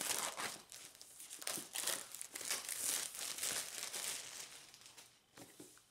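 Packaging crinkling and tearing as a new MacBook Pro box is unwrapped, in a run of irregular rustles that trail off near the end.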